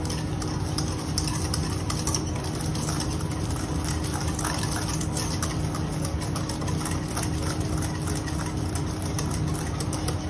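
Wire balloon whisk beating egg yolks and sugar in a stainless steel bowl, with quick clicks and scrapes of the wires against the metal, over a steady machine hum.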